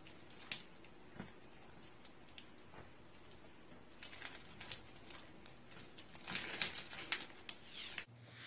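Slime packed with small plastic tube pieces being squeezed and pressed by hand, making faint crackling clicks as the pieces shift against each other. The clicks are sparse at first and come thicker in the second half.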